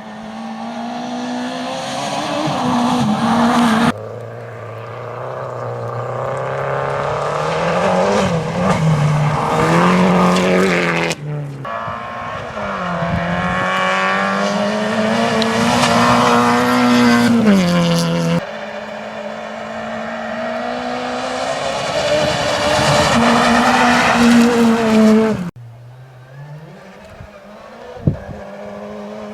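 Rally cars at full throttle on a gravel stage, engines revving up and down through the gears as the cars pass, with some tyre and gravel noise. It comes as a run of short takes, each cutting off suddenly into the next, about every four to seven seconds.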